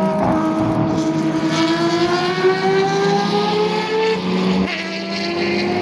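Mazda rotary-engined race cars, a four-rotor 767 prototype among them, accelerating out of a corner with a high engine note. The note climbs steadily for about four seconds, drops at a gear change and then holds steady.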